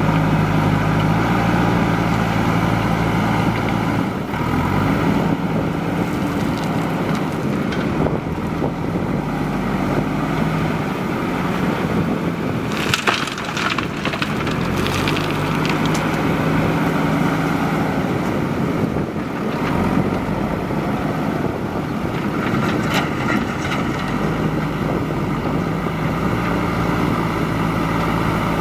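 Backhoe loader's diesel engine running under load, its pitch stepping up and down as it works, with bursts of clattering and scraping, the strongest near the middle. Wind buffets the microphone.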